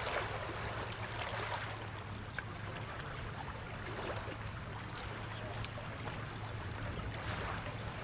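Steady low engine hum of a boat under way, with the rush of water along the hull.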